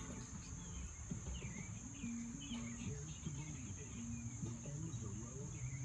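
Outdoor ambience: a steady, high insect drone with scattered short bird chirps, over a low, indistinct murmur.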